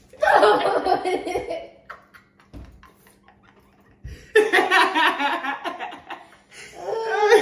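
Two women laughing loudly in bursts: a first burst just after the start, a lull a couple of seconds in, then more laughter that builds again near the end.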